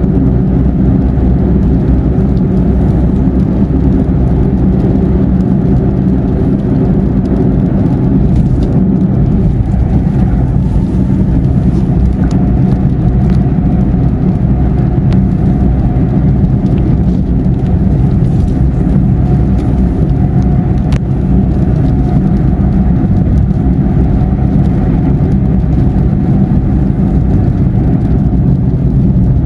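Steady low drone of a car's engine and tyres heard from inside the cabin while cruising on a wet highway, with a few faint ticks over it.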